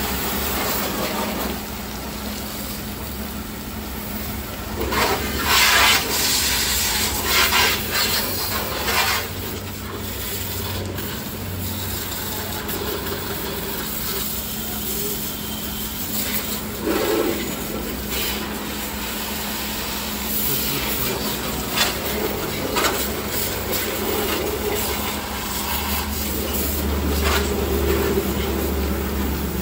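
Pressure-washer jet spraying the underside of a car up on a lift, over a steady low hum. The spray gets louder in several stretches, most of all between about five and nine seconds in.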